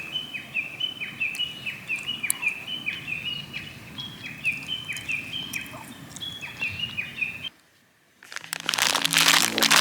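A bird calling in a quick repeated series of short high notes, about three a second. Near the end it cuts off suddenly, and after a brief hush loud crackling noise comes in, with music starting under it.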